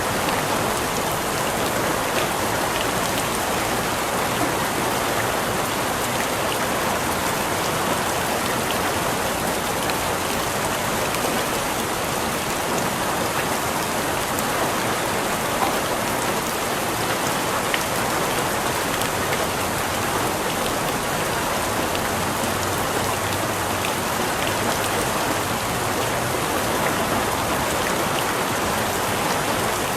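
Steady rain falling and pattering on a surface, with individual drops ticking now and then.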